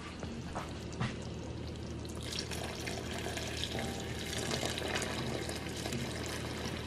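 A steady stream of water poured into a pot of simmering curry goat stew, starting about two seconds in after a couple of short knocks. This is the first water added to the stew after the meat has cooked down in its own juices.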